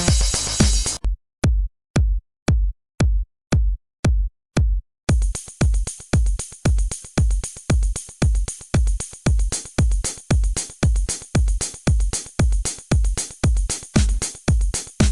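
Electronic background music: the full track drops out about a second in, leaving a bare kick drum beating about twice a second, and the full beat comes back in about five seconds in.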